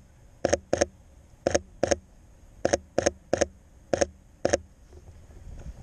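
Sony A7 III camera shutter firing nine times in an uneven run, some shots in quick pairs.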